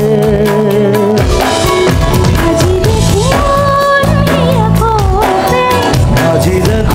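Live band music: a drum kit with snare and cymbal hits keeps a steady beat under a gliding melody line.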